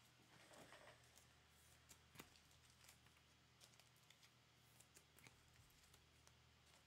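Near silence: room tone with a low hum, a few faint scattered clicks and a soft rustle.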